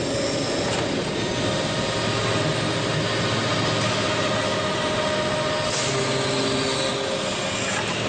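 Williams & White 400-ton horizontal bulldozer press running under power: its 60 hp electric motor and Oilgear hydraulic pump give a steady machine hum. The pitch of the whine shifts about six seconds in.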